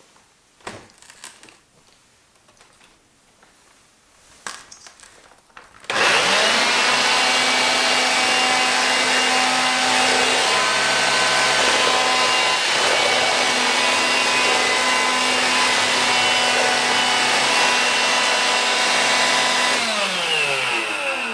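A few light clicks and knocks of handling, then about six seconds in an Electrolux Ergorapido Power Ion cordless stick vacuum's motor switches on at full speed and runs steadily with a high whine. Near the end it is switched off and winds down, its pitch falling.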